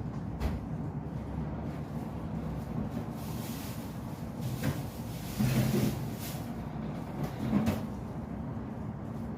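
A few knocks and clatters of household things being handled, loudest about halfway through, over a steady low hum.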